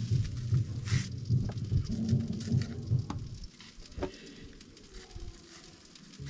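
Chicken and bananas sizzling on a charcoal jerk pan grill. A few sharp clicks come through, and a low rumble runs through the first half before fading.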